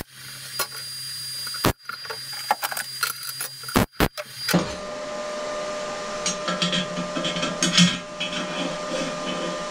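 Electric welding arc crackling in a few short runs as steel brackets are tacked onto a steel plate frame. About halfway through it gives way to steel parts being handled, scraped and clinked together on the frame as a bracket is fitted.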